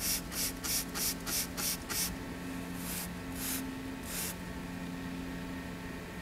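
Spray bottle squirting water onto a freshly coated alloy wheel for a beading test: a quick run of about nine short hissy squirts in the first two seconds, then three slower ones, ending a little after four seconds.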